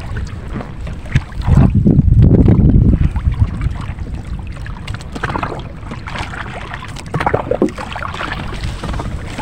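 Wind rumbling on the microphone aboard a small wooden outrigger boat on open water, with a stronger gust about a second and a half in. A few sharp knocks come from the boat.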